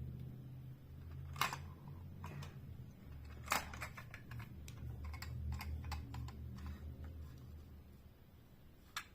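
Plastic clicks from a toy ghost figure being worked by hand to show its action feature: two sharp clicks about a second and a half and three and a half seconds in, then a quick run of lighter clicks, and one more near the end.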